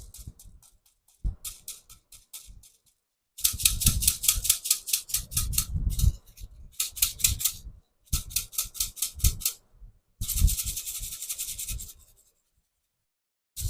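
A toy being shaken or rubbed, making a fast rhythmic rattling rasp in about five bursts of one to three seconds each, about five or six strokes a second.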